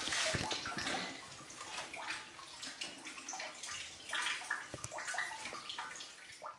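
Blocks of white cheese being lifted out of brine in a plastic tub and set into a plastic container: irregular splashing and dripping of the brine, with light knocks against the plastic.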